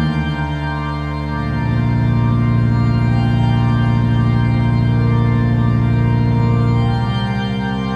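Background music of sustained, held chords, changing about a second and a half in and again near the end.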